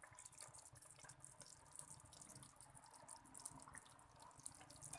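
Faint, steady sizzling with light crackling ticks from onion-tomato masala frying in oil in a pan on a low flame.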